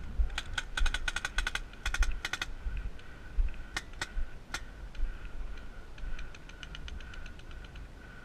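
Paintball markers firing: rapid bursts of sharp pops in the first couple of seconds, a few single shots around four seconds in, then a fainter quick string of shots near the end.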